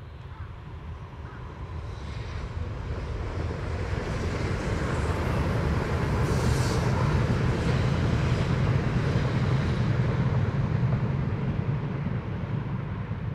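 E6 series Shinkansen train passing close by: a rumble of wheels on rail that swells over the first few seconds and stays loud, with a brief hiss about six seconds in as the cars go by.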